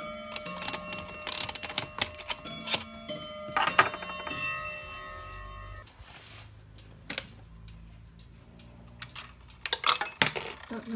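Mechanical clocks striking: struck bell or gong tones ring on and overlap, dense through the first four seconds, quieter in the middle, and striking again near the end.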